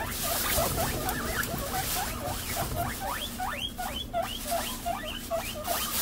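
Guinea pigs wheeking: a rapid run of short, rising squeals, about three or four a second, the highest of them about halfway through.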